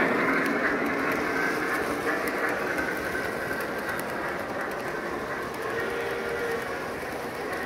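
Lionel O-gauge model train's diesels and loaded freight cars rolling past on the layout track: a steady rumble of wheels on rail with faint clicking, fading as the train moves away.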